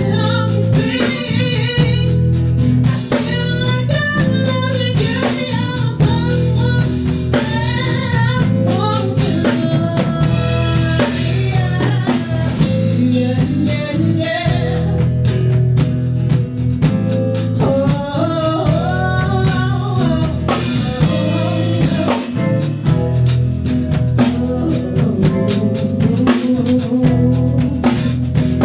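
Live blues-rock band playing: a woman singing a bending melody over guitar, bass and a drum kit keeping a steady beat.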